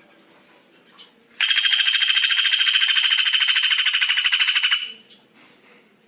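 A songbird's loud rattling trill: a rapid, even run of about a dozen buzzy pulses a second, held on one pitch, starting about one and a half seconds in and lasting a little over three seconds.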